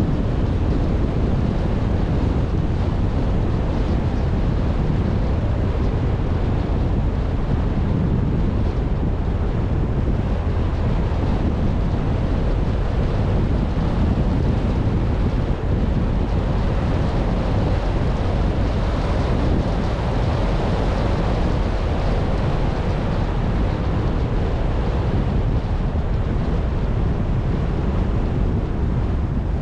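Wind rushing over the microphone of a moving car: a steady, loud rush that is heaviest in the low end. The car's running and tyre noise sits beneath it.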